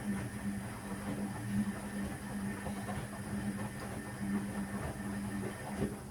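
Electrolux EW1057F washing machine's motor turning the drum: a steady motor hum with rumbling and clattering over it, stopping about six seconds in.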